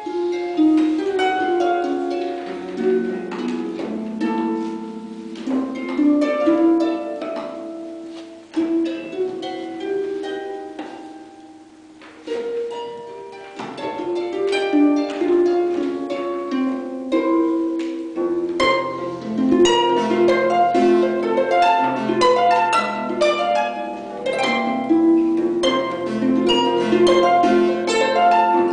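Concert pedal harp played solo: a stream of plucked notes and arpeggios that ring on and overlap. The playing thins out briefly about halfway through, then grows fuller, with low bass notes added in the second half.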